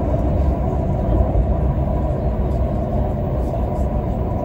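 Passenger train running at speed, heard from inside the carriage: a steady low rumble with a faint steady high tone above it.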